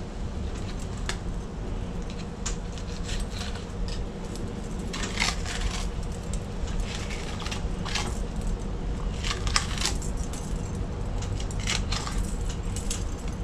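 Fillet knife slicing a pompano along its backbone on a wooden cutting board: scattered short scrapes and clicks of the blade, bunched in the middle and again near the end, over a steady low background rumble and a faint hum.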